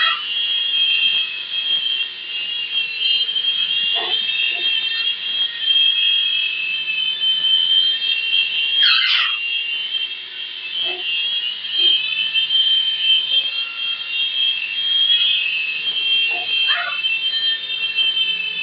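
Small indoor RC helicopter's electric motors and rotors whining steadily in flight, a high-pitched buzzy whine, with two brief swoops in pitch.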